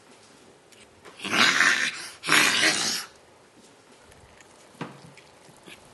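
A child sniffing at the food on his plate like an animal: two long, loud sniffs, each close to a second, the first about a second in and the second just after.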